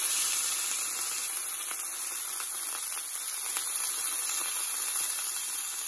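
Steak frying in oil in a cast iron pan: a steady sizzle with faint, scattered crackles of spitting fat.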